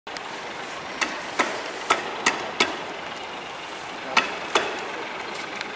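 Seven sharp knocks at uneven intervals, each like a hammer blow: five in a quick run in the first half, then two more a little after four seconds in, over a steady background hiss.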